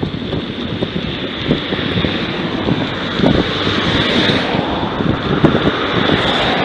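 Wind buffeting the microphone: a loud, continuous rushing noise with irregular low rumbles.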